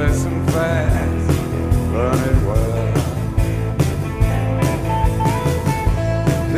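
Rock song playing as background music: an instrumental stretch with a steady drum beat and sustained, sliding melody lines.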